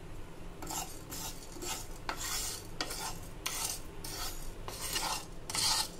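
Wooden spatula stirring whole spices, dry-roasting in a nonstick frying pan: a quick series of scraping strokes, about two or three a second, with the seeds rasping against the pan. The strokes begin about half a second in.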